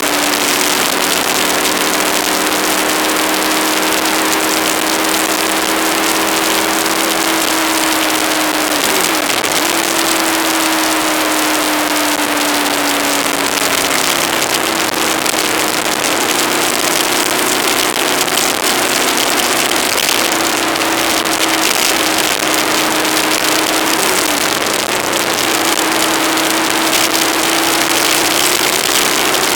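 Aprilia ETV1000 Caponord's V-twin engine droning at a steady cruise under a loud hiss of wind rush on the microphone, the engine's pitch drifting slowly up and down with speed.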